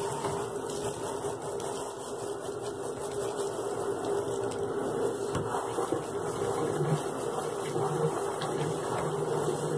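Water spraying steadily from a hose spray nozzle onto a large dog's thick, shaggy coat in a bathing tub: an even hiss of water on wet fur.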